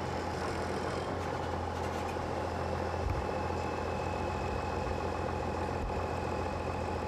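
Diesel engine of a John Deere cab tractor running steadily with a low, even hum.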